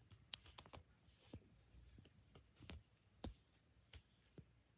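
Near silence with scattered faint clicks and taps, about a dozen in a few seconds, the sharpest a third of a second in: handling noise of the phone recording the sky.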